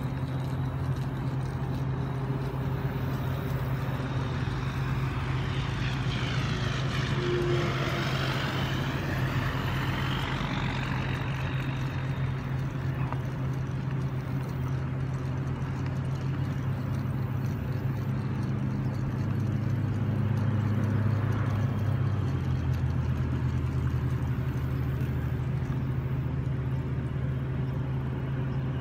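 A steady low engine hum, with a passing vehicle-like whoosh that swells and fades about six to eleven seconds in, and the hum growing briefly louder near twenty seconds.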